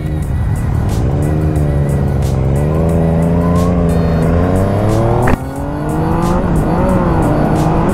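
Yamaha FZ-09 inline-three engine with a full Yoshimura exhaust system pulling away and accelerating, its pitch climbing through the revs, with a short sharp crack about five seconds in before it picks up again.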